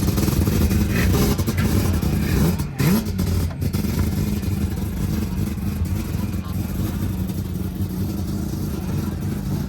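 Four-rotor 26B rotary engine of a Mazda RX4 running steadily, with a brief dip and a quick rev about three seconds in.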